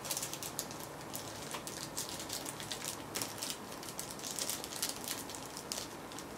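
Small clear plastic parts bag crinkling with many quick, irregular crackles as fingers work a piece stuck at the bottom of it out.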